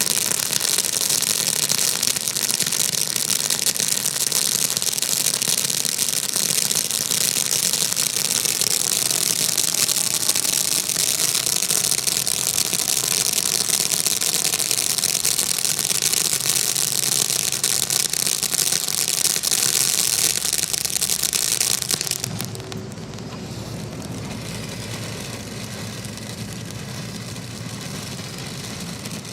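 Black Cat 3 for 1 Fountain firework spraying, a loud, steady, high hiss that stops about 22 seconds in. After that a quieter, lower steady rumble remains.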